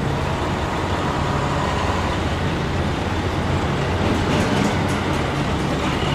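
Road vehicles driving slowly past in a line: a steady low engine drone and tyre and road noise as an ambulance goes by and a heavy dump truck approaches.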